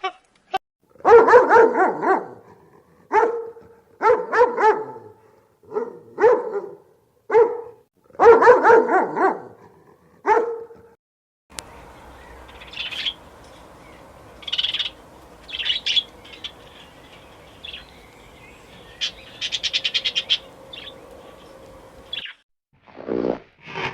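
A dog barking repeatedly, in loud pitched barks about a second apart for around ten seconds. It then cuts to short high bird chirps over a steady faint hum.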